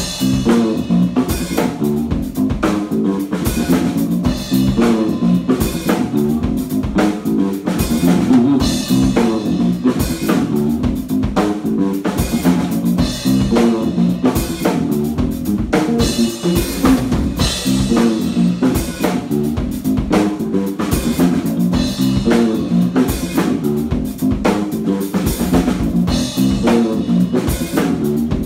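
Electric bass guitar, played fingerstyle through Hartke bass cabinets, and a drum kit playing together live as a duo: a moving bass line over a beat of kick drum, snare and cymbals.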